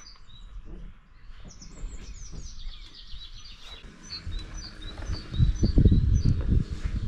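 Small birds singing: a run of quick falling notes, then repeated high chirps. From about five seconds in, a louder low rumble with thumps comes in and dominates.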